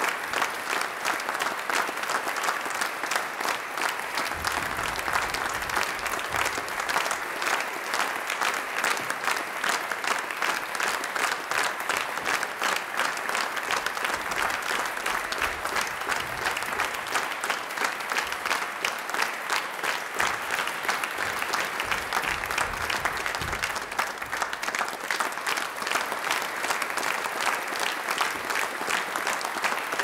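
Crowd applause: many people clapping steadily and densely, the claps blending into a continuous patter that neither builds nor fades.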